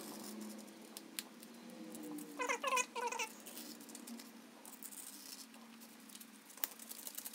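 Tool squeaking against Kaizen foam as it is marked and cut: about four quick, high squeaks about two and a half seconds in, with light scratching and a few ticks around them.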